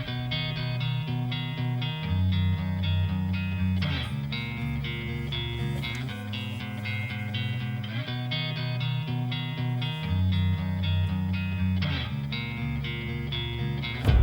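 Background music: plucked guitar notes in a steady pattern over a bass line.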